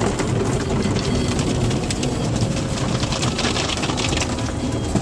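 Automatic car wash heard from inside the car: water spray and wash brushes beat on the windows and body in a dense, steady patter of small hits over a low rumble.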